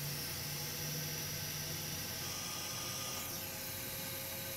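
Steady hiss of air blowing from a hot air rework station, heating the solder of a small ceramic capacitor on a laptop motherboard to lift it off. A low hum sounds under it for the first two seconds, and a brief falling whistle comes about three seconds in.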